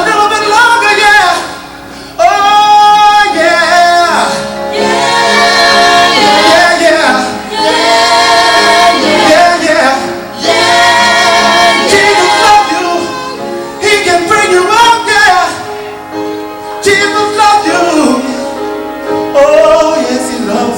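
Live gospel song: a woman's voice leads the singing over the music, with long held and sliding notes.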